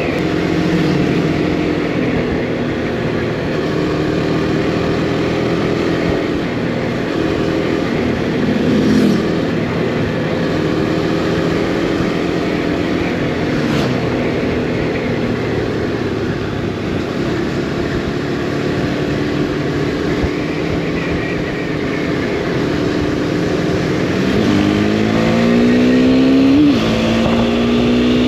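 Husqvarna Svartpilen 401's single-cylinder engine under way, with its note rising and falling with throttle and gear changes over steady wind rush. Near the end it revs up for a few seconds and then drops sharply with an upshift.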